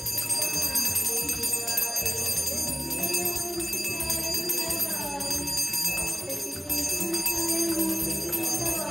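Small hand-held prayer bell rung steadily and continuously during aarti, with people singing beneath it.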